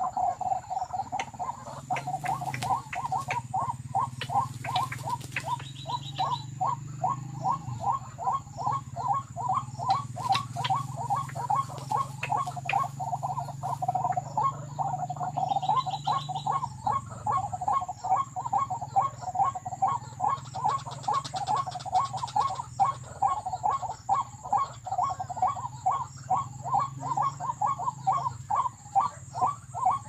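White-breasted waterhen's "ruak ruak" call, one note repeated steadily about two to three times a second without a break, over a low hum.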